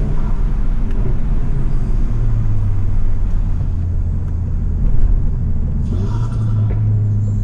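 Tuned, decat and straight-piped Volkswagen Golf GTI's turbocharged 2.0-litre four-cylinder running at steady low revs, a deep exhaust drone heard from inside the car. A brief hiss comes about six seconds in.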